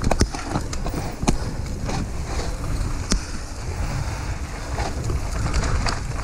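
Mountain bike rolling fast down a dirt singletrack: wind buffeting the GoPro Hero5 Black's microphone over the sound of the tyres on dirt, with sharp knocks and rattles from the bike over bumps, the loudest about a second in and about three seconds in.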